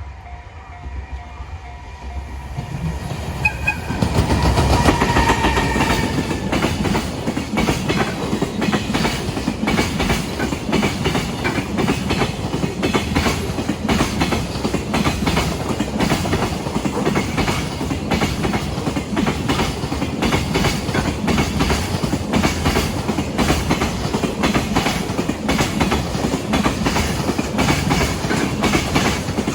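Freight train passing close by: the locomotive's horn sounds briefly a few seconds in as the train draws near, then a long run of freight wagons goes past with a rapid, regular clickety-clack of wheels over the rail joints. The sound builds up over the first four seconds and then stays loud.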